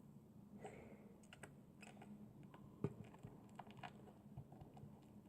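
Faint, scattered small clicks and taps from handling a small slime press, with a slightly louder tap a little under three seconds in.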